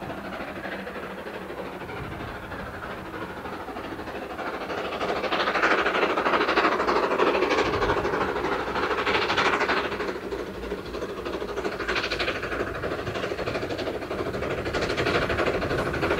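Steam train running along the line, getting louder about five seconds in, with uneven louder surges through to the end.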